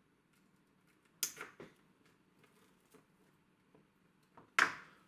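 Plastic cable-tie clips on a coiled HDMI cable being snipped off: two quick sharp snips about a second in and a louder snap near the end.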